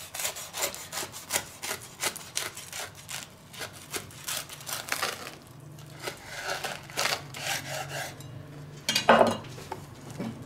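Kitchen knife sawing back and forth through a crisp toasted sandwich on a wooden cutting board: a quick run of crunching, scraping strokes that thin out after about five seconds, with one louder knock about nine seconds in.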